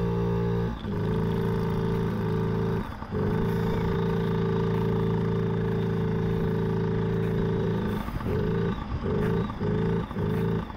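Brand-new Yamaha PW50's small two-stroke single-cylinder engine running at a steady pitch, still in its break-in. It drops out briefly twice, then cuts in and out in short spurts near the end.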